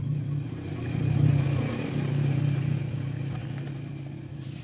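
A motor vehicle's engine running close by, with a steady low hum that grows loudest about a second in and then slowly fades away.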